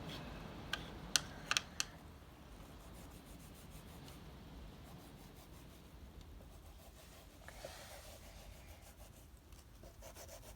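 A quick run of about five sharp clicks around a second in, then faint rubbing and handling noise.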